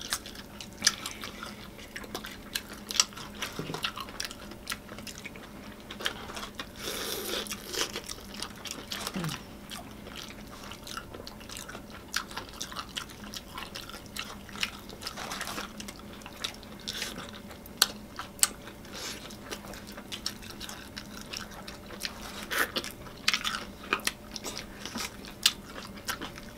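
Close-miked eating of fried chicken: crisp bites and crunching, wet chewing and lip smacks, many short sharp sounds one after another.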